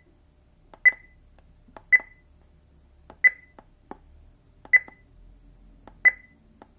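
Quasar F3 metal detector control box beeping: six short, high beeps about every second to second and a half, with faint clicks between. The unit is in auto ground balance mode, waiting for a signal from the coil, and none comes.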